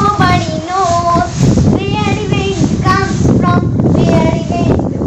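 A child singing a slow tune in phrases, with a few notes held and sliding.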